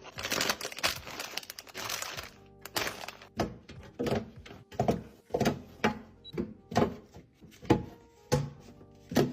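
Chocolate wrappers crinkling for a couple of seconds, then chocolates set down one after another with about ten light knocks, roughly one every half second to second, over soft background music.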